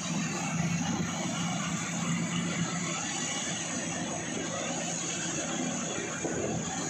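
Iseki HC 80P rice combine harvester running steadily: an even engine hum under the constant clatter and whir of the machinery.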